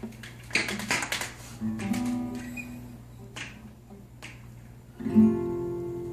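Clicks and knocks of handling, then an acoustic guitar strummed once about five seconds in, the chord ringing on.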